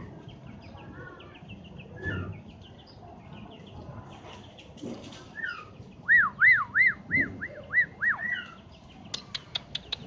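Scaly-breasted munia (bondol peking) singing among soft high chirps: a run of about seven loud, clear, arched whistled notes in the middle, then a quick series of sharp clicking notes near the end.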